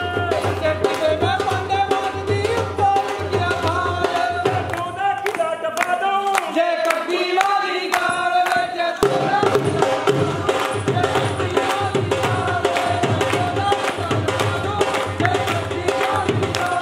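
Music with a melody over a steady drum beat. The low beat drops out for a few seconds and comes back with a hit about nine seconds in.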